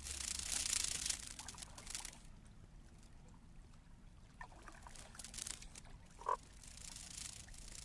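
Sonic Kayak sonification playing sparse short grains of granular-synthesised animal sound. There is a hissing noise in the first two seconds and one brief, louder tone about six seconds in.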